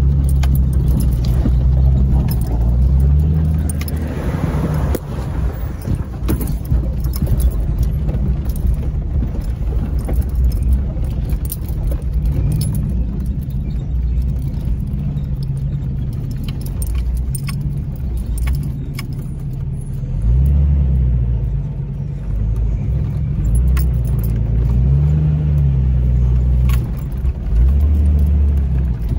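Jeep Cherokee XJ crawling over rock, heard from inside the cabin: a steady low rumble from the engine, its revs rising and falling over and over, with frequent light rattles and jingles from loose things in the cab as it jolts.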